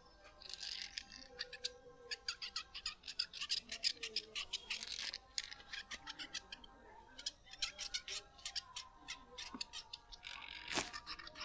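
Quick, irregular slaps and taps of the barber's hands on the head and skin during a head massage, several a second, with bursts of rubbing hiss in between.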